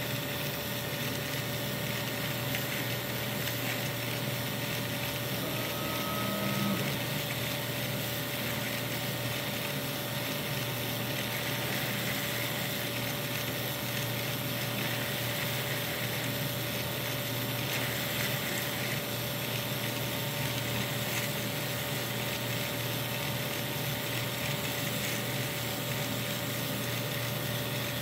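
Small DC gear motor driving the plastic gears of a 3D-printed two-speed manual transmission model, whirring steadily.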